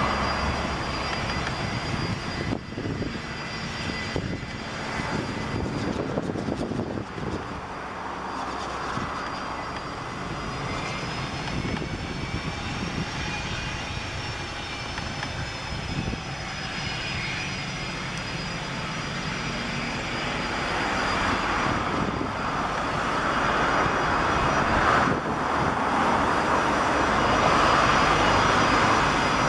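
Gulfstream G-IV's two Rolls-Royce Tay turbofans running at taxi power, a steady rushing sound with a thin high whine, growing louder in the last several seconds.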